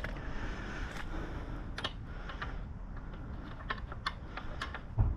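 A dozen or so light, irregular clicks and taps of small metal parts being handled as the rear axle and its axle block are fitted through a motorcycle swingarm.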